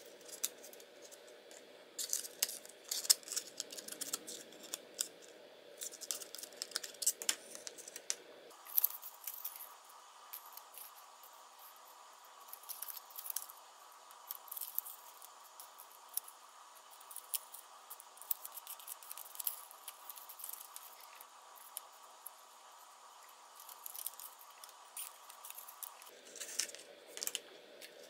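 White cardstock parts of a paper model being handled and pressed together by hand: irregular light scratches, rustles and small taps of stiff paper.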